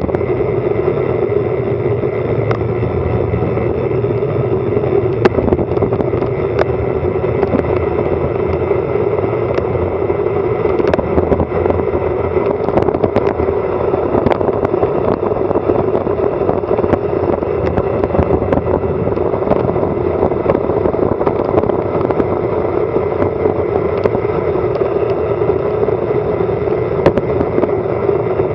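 Wind rushing over an action camera's microphone during a fast bicycle descent, mixed with tyre and road noise in a steady loud rush. Short sharp clicks and rattles from road bumps are scattered throughout.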